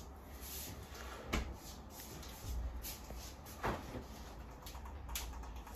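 Refrigerator door being swung shut: a few light knocks and bumps, three in all, over a low steady room hum.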